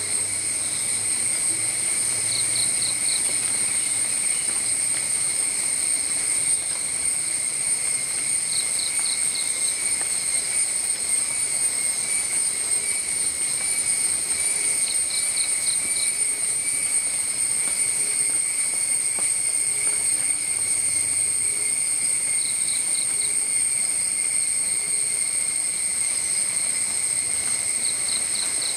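Steady high-pitched drone of insects, like crickets, with a short group of three or four quick chirps about every six or seven seconds.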